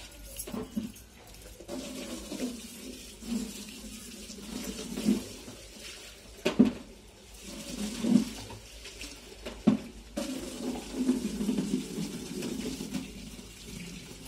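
A person eating watery fermented rice by hand from steel bowls: irregular wet squelching, slurping and chewing, with three sharp clicks in the middle that are the loudest sounds.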